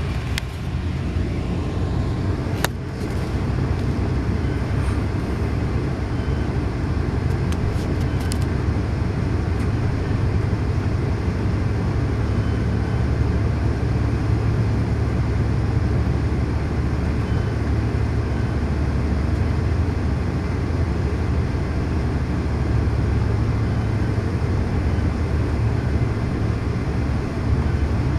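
Steady low rumble of a 1978 Hawker Siddeley Canada bilevel commuter coach rolling along the track, heard from inside the car. A few sharp clicks in the first ten seconds.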